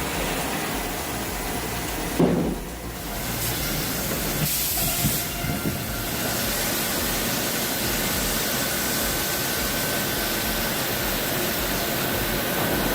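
Big-log sawmill machinery running: a steady rushing hiss, with a sharp knock about two seconds in and a faint steady whine through the second half.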